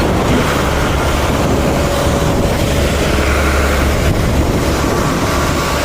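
Motor vehicle engine running steadily, a constant low rumble.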